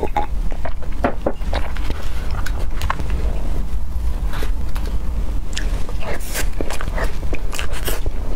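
Close-miked eating sounds from a taro mille-crêpe cake: soft chewing and irregular mouth clicks, with a spoon scraping through the cream cake, over a steady low rumble.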